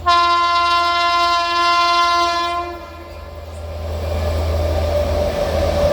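Sealdah Duronto Express locomotive horn sounding one long steady blast for nearly three seconds, then the rumble of the train growing louder as it approaches to run through the halt without stopping.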